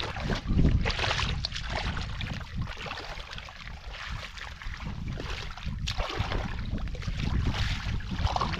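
Hands sloshing and splashing in shallow muddy water, groping through the mud for catfish: an uneven run of wet splashes and stirrings.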